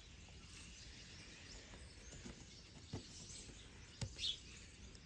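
Faint background hiss with two small clicks about three and four seconds in, from handling the phone's small parts and tools during disassembly.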